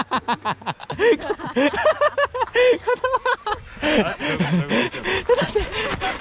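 People laughing: quick rapid bursts of laughter in the first second, then chuckling and giggling mixed with indistinct talk.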